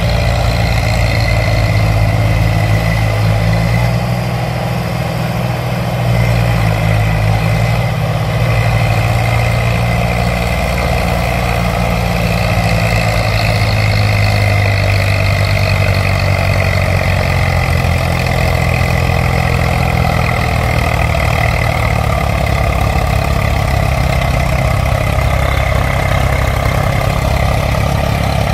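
Tractor engine sound running steadily at a low idle, a continuous low rumble without a break, coming with an RC toy tractor towing another.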